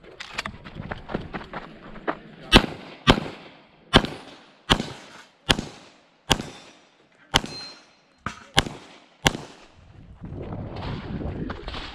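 A major-power-factor competition pistol firing about ten shots at a steady, unhurried pace, half a second to a second apart, with a few fainter reports near the start.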